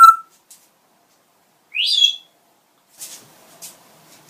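Talking parrot whistling and chirping: a short clear whistle at the start, a short chirp about two seconds in that sweeps up and then down, and a few faint clicks near the end.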